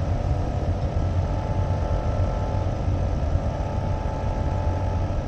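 Lab vacuum pump running with a steady hum and low rumble, drawing suction through a Büchner funnel during vacuum filtration of a recrystallized solid.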